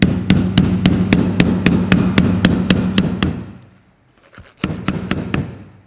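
Hammer blows on the crimped steel rim of a tailgate soft-close actuator housing, about four strikes a second with a low ring, as the housing is being forced open. There are two runs: a long one, then after a pause a shorter one.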